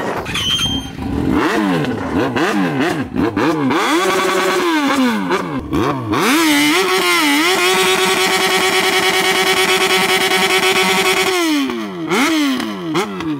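Yamaha XJ6's inline-four engine revved in repeated blips, then held at steady high revs for about five seconds and let fall back in blips near the end. This is a burnout: the engine is held high while the rear tyre spins on the asphalt and smokes.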